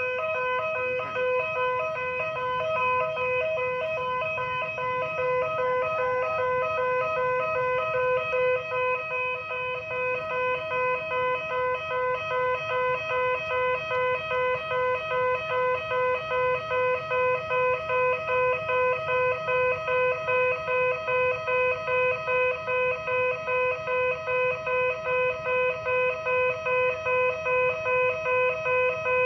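Railway level-crossing warning siren sounding: a steady electronic alarm of several tones at once that pulses fast. About ten seconds in, the pulses turn into clear, even beats a little over twice a second.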